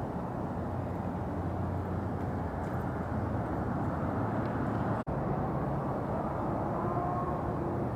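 Steady low rumble of vehicle noise, with a hum and an instant's dropout about five seconds in.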